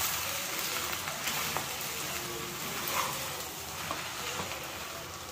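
Broken wheat and sugar sizzling in a pan and being stirred, with a few faint spoon ticks. The sugar is melting and letting out water, loosening the mixture.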